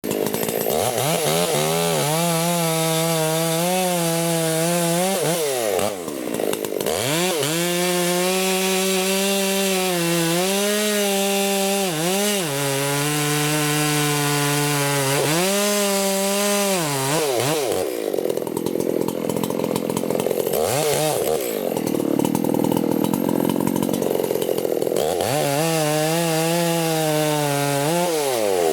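Chainsaw cutting wood at high revs, its engine note dropping as the chain loads in the cut and rising again as it eases, several times over. For several seconds past the middle the note sits lower and rougher, then it revs back up near the end.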